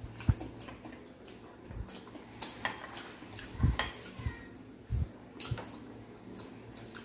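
Spoon and cutlery clinking and scraping on ceramic plates and bowls during a meal, in scattered sharp clicks, with a few short low thumps between them.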